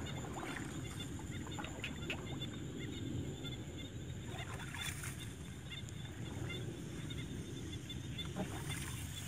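Marsh ambience: a steady low rumble with a faint, fast high-pitched chirping chorus and a few soft clicks.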